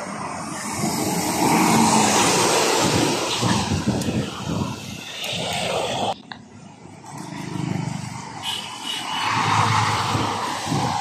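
Highway traffic passing close by, trucks among it: tyre and engine noise swells up and dies away as vehicles go past. It breaks off sharply about six seconds in, then swells again with a low engine rumble as a large truck passes near the end.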